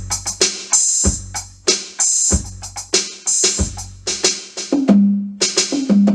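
Alesis Command mesh electronic drum kit played through its 808 drum-machine preset: long, booming 808-style kick drums about every second and a bit, with snare and hi-hat hits between them. Near the end comes a short run of pitched 808 tom tones.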